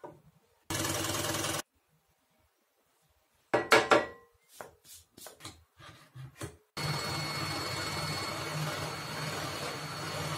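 Electric scroll saw cutting MDF, heard in edited bursts: a short run about a second in, a spell of knocks and clatter from the wood being handled in the middle, then a steady run with a low hum and a thin high whine from about seven seconds on.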